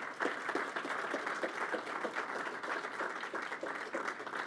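Audience applauding: many people clapping together, steady and dense throughout.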